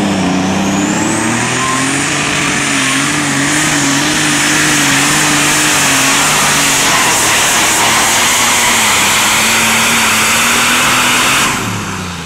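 Minneapolis-Moline pulling tractor's engine running at full power under load as it pulls the sled down the track, with a high whine that rises over the first second or so and then holds. The sound drops off sharply near the end as the pull finishes.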